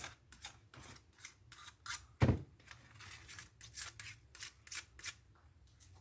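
Putty knife scraping packed sawdust and grime out of a chainsaw bar in quick, short strokes, with one dull knock a little over two seconds in.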